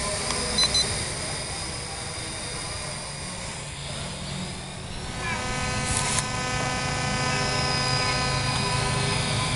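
HM1315 FPV quadcopter's propellers running, a steady buzzing whine of several even tones that grows louder and clearer about halfway through. Two short high electronic beeps sound near the start.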